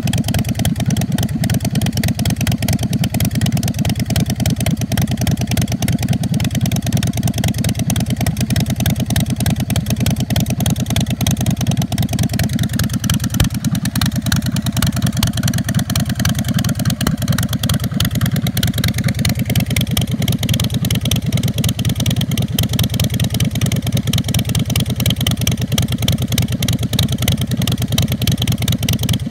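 2008 Big Dog Pitbull chopper's 117 cubic inch S&S V-twin engine idling, with a steady, even exhaust pulse.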